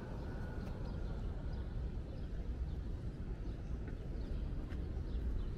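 Steady city street ambience: a low, even rumble with a few faint, scattered clicks over it.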